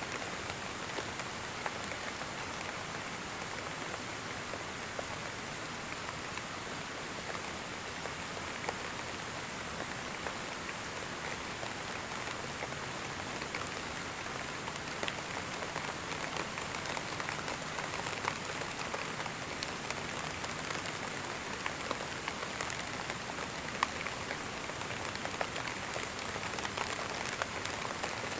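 Steady gentle rain falling, an even hiss with scattered individual drops ticking on a surface.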